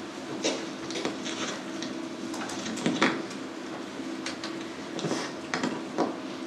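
Scattered clicks, knocks and rustles of small objects being handled close to the microphone, the loudest knock about halfway through, over a steady low hum.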